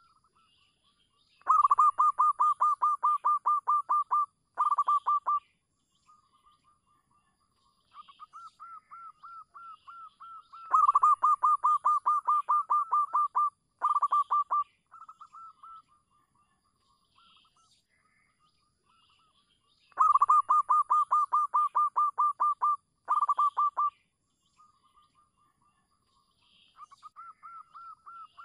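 Zebra dove (perkutut) singing its cooing song: rapid trains of short staccato coos, about five a second. Three loud phrases of about three seconds come roughly ten seconds apart, each followed at once by a short burst, with softer runs of coos in between.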